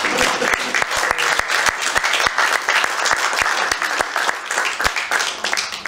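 Audience applauding, dense clapping from many hands throughout.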